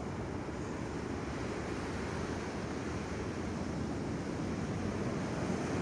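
Ocean surf washing on the beach as a steady rush, with some wind on the microphone.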